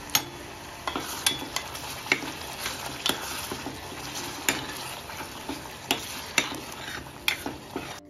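Spinach purée sizzling in hot oil and fried onions in a stainless steel pot while a steel ladle stirs it, knocking and scraping on the pot with irregular sharp clicks.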